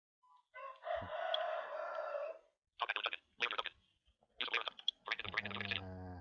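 An animal call held for about two seconds, then several shorter broken calls, with a low steady hum under the last of them.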